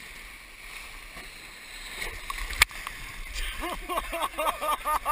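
Whitewater rushing around an inflatable raft, with a single sharp knock about two and a half seconds in. From about three and a half seconds, rafters' voices shout in quick repeated calls over the water.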